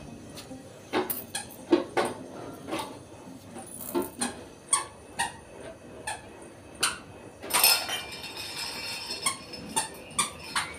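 Stainless-steel kitchen utensils on a floor knocking and clinking as a toddler handles them: scattered sharp clinks, with a brief squeak about three quarters through.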